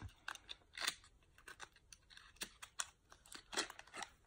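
Faint, irregular clicks, taps and crinkles as a small cardboard liquid-lipstick box is handled and opened by hand.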